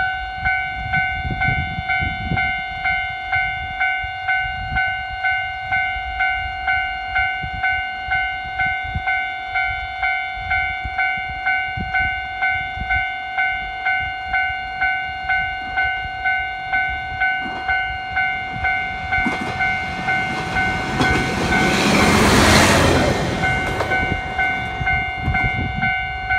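Railway level-crossing warning bell ringing steadily, about two strikes a second, as a YR-880 diesel railcar passes the crossing, its engine and wheel noise swelling to a peak a few seconds before the end and then fading.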